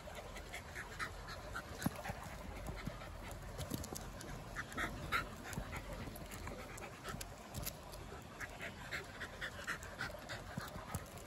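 Shiba Inu dog panting: quick short breaths in several runs.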